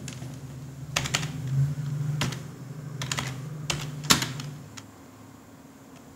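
Computer keyboard keys clicking: about seven separate sharp keystrokes, irregularly spaced, the loudest about four seconds in. A low steady hum sits underneath and fades out near the end.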